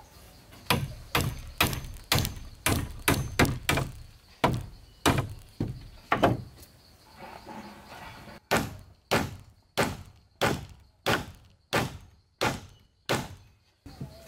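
Repeated blows of a tool striking wood with a thunk: an uneven run of strikes, a pause of about two seconds, then about ten evenly paced strikes, roughly two a second.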